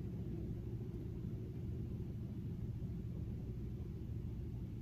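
Steady low background rumble of room noise, with no distinct taps or other events.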